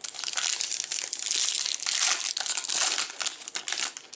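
Plastic trading-card pack wrapper crinkling steadily as it is torn open and handled.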